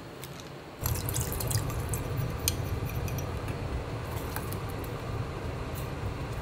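Saucepan of mitarashi dango sauce cooking on a gas burner and stirred with a spatula: a steady low rumble with irregular crackles, bubbling and spatula scrapes, starting about a second in as the sauce is cooked to thicken.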